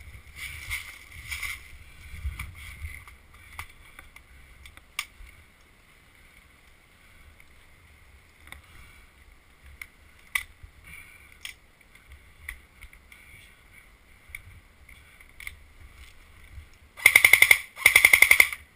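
Scattered clicks and knocks of handling on an ARES Stoner 96 airsoft LMG (AEG) with a magazine that is not feeding properly. Near the end come two short bursts of full-auto fire from it, each under a second long.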